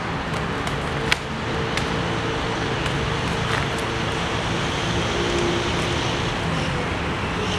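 Kriegsmesser training blades striking each other in a handful of sharp clicks and clacks, the loudest about a second in, over a steady bed of distant traffic noise.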